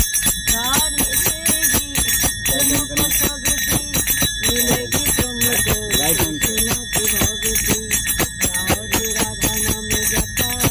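A woman singing a devotional song, keeping time with small brass hand cymbals (manjira) struck in a quick, steady beat.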